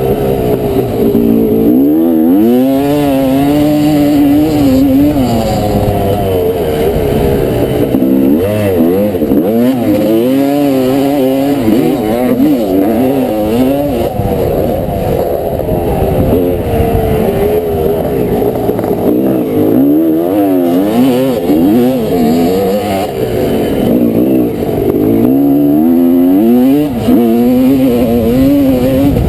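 1989 Honda CR250R's two-stroke single-cylinder engine, heard from on board, revving up and dropping back over and over as it is ridden flat out, the pitch climbing and falling many times.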